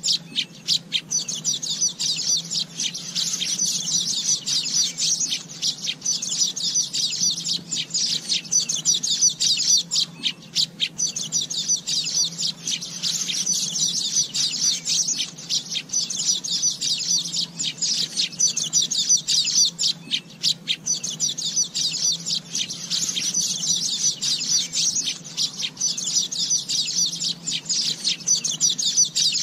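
Asian golden weavers chirping and chattering in a dense, unbroken stream of rapid high notes that swells and eases every few seconds.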